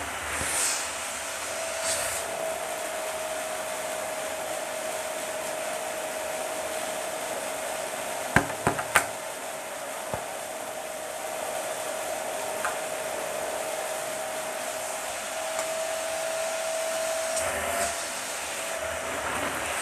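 Dyson vacuum cleaner running steadily with a constant whine, and a quick cluster of sharp clicks about halfway through.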